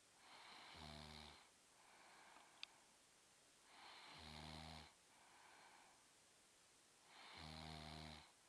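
A sleeper snoring: three low snores, each about a second long, come about every three seconds, with softer breaths between them. A brief click comes about two and a half seconds in.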